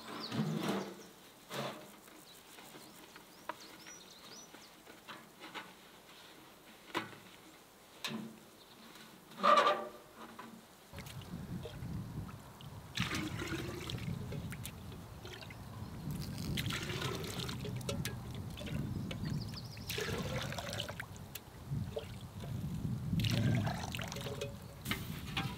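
Water splashing and trickling as a pot is dipped into a shallow puddle and water is scooped into a bucket, in several swells over the second half. Before that come a few scattered knocks.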